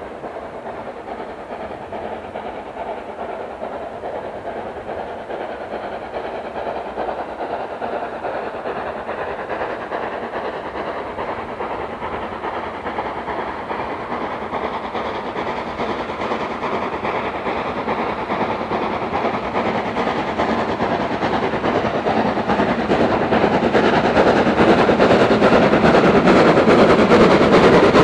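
Steam locomotive approaching under steam with its train, its rapid exhaust beats and the running of the train growing steadily louder as it nears.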